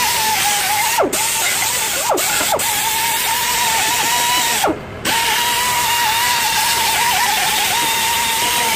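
Air-powered die grinder with a cleaning attachment running on the face of a rotary engine's intermediate iron: a steady high whine over a hiss. The pitch drops sharply several times, and the tool stops for a moment about five seconds in before spinning up again.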